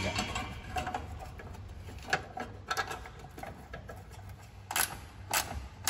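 Scattered light clicks and taps of a steel bumper bracket being handled and set against the car's front body panel. A few are sharper knocks, the loudest of them near the end.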